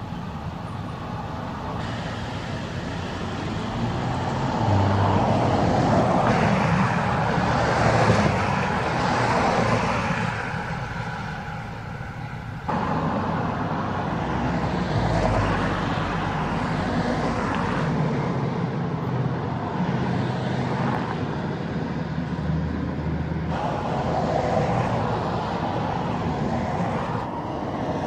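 Road traffic: heavy-duty pickup trucks towing gooseneck horse trailers driving past, engine and tyre noise swelling as they go by. The sound changes abruptly a couple of times.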